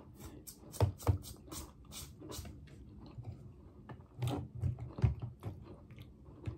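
Close-up eating sounds: a plastic spoon scraping and clicking in a plastic cup of cookies and cream pudding, with mouth sounds of chewing. There is a string of irregular short clicks, with a few soft knocks about four to five seconds in.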